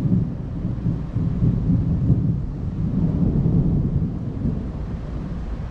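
Thunder rolling in a long low rumble that swells and fades.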